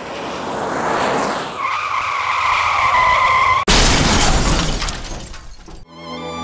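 A car approaching with its tyres screeching in a long skid, then a sudden loud crash of metal and breaking glass that tails off over about two seconds.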